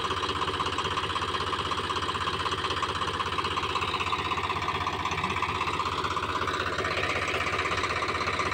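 Tractor's diesel engine running at a steady idle, an even, unbroken rhythmic clatter.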